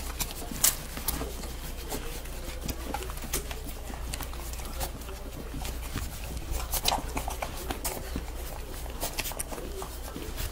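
Standard poodle puppies suckling from their mother: a run of irregular wet smacking and clicking sounds, over a steady low hum.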